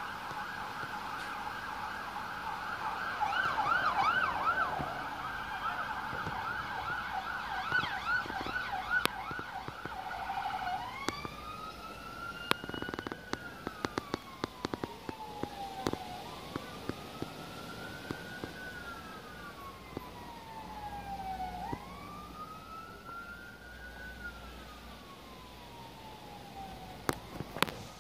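Fire engine siren on yelp, a fast warble, switching about ten seconds in to a slow wail that rises quickly and falls slowly, repeating about every five seconds. A few sharp clicks sound around the switch and near the end.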